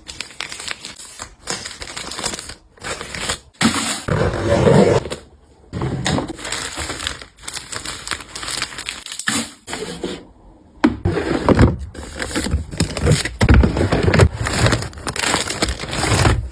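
Packaging and products being handled: irregular crinkling, scraping and small knocks. The loudest stretches come about four seconds in and again through the last few seconds.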